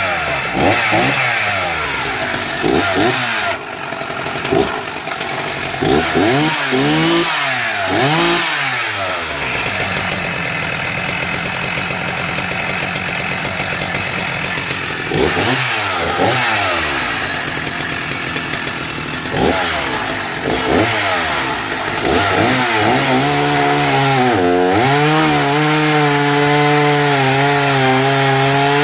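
1978 Husqvarna Rancher 61 single-cylinder two-stroke chainsaw running just after being started on a bit of choke, revved up and down over and over, then held at steady high revs for the last several seconds.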